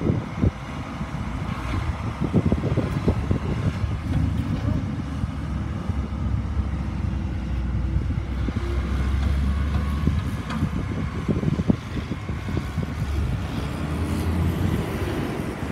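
Diesel engine of a large four-wheel-drive John Deere tractor running steadily under load as it drives across the pad and up the haylage pile in a bunker silo.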